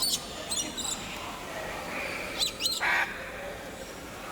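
Birds chirping: short, quick, high-pitched calls in little clusters at the start, about half a second in, and again around two and a half seconds in, over a steady background hum.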